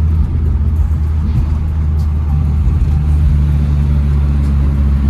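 Nissan S14 Silvia's turbocharged SR20 four-cylinder engine running at a steady cruise, a loud, even low drone that holds nearly the same pitch throughout.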